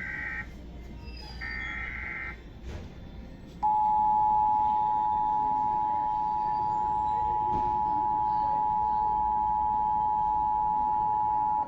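Emergency Alert System tones: the end of one SAME header data burst and then another, short data bursts about a second apart, followed after a short gap by the EAS two-tone attention signal (853 and 960 Hz sounded together), a loud steady tone held for about eight seconds that cuts off sharply.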